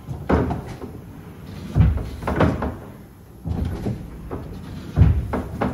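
The wooden bellows treadle of an 1842 Eduard Meyer church organ being trodden by foot, working the feeder bellows to fill the reservoir bellows with wind: a string of wooden knocks and creaks, with two heavy thumps about three seconds apart.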